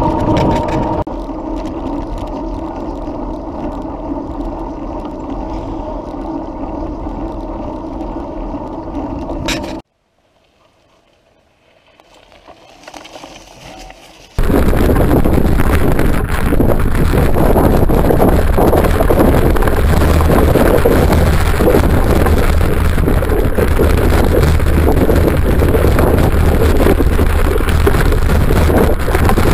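Mountain bike riding recorded from the bike: for the first ten seconds a steady whir with a few held tones while rolling on asphalt. After a brief drop-out, a loud, even rushing and rattling of the bike going over a dirt forest track, with a strong low rumble of wind on the microphone.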